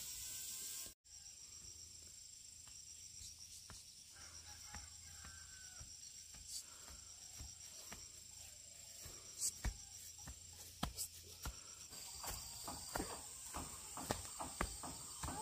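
Steady high-pitched insect chirring, with scattered clicks and knocks that come more often in the last few seconds.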